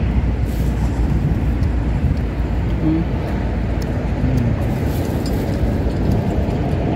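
Wind buffeting the microphone outdoors: a steady low rumble with no letup.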